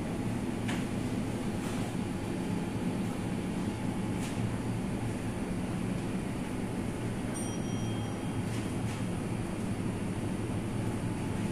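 Steady low hum of a supermarket's refrigerated display cases and ventilation, with a few faint clicks and two brief high beeps about seven and a half seconds in.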